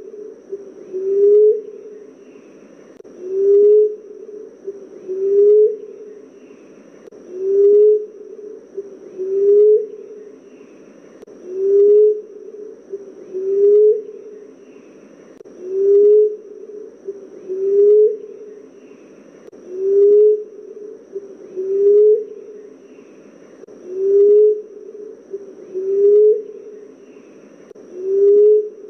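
Common emerald dove calling: a low, soft coo that rises slightly with a little upward flick at its end, repeated evenly about once every two seconds.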